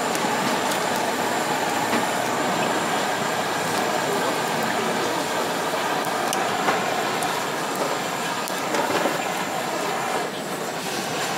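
Handheld butane blow torch running with a steady hiss as it flames split prawns on a charcoal grill.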